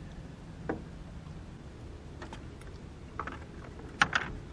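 Scattered light clicks and knocks of fishing tackle being handled in a small boat, with the loudest, a quick double knock, about four seconds in as the angler turns and reaches toward the deck, over a steady low background noise.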